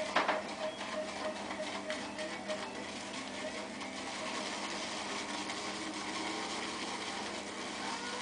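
Simpsons Berkeley badger shaving brush whipping shaving cream in a handheld bowl: the bristles swish and scratch in rapid, repeated strokes. The lather is still being built dry, with little water yet.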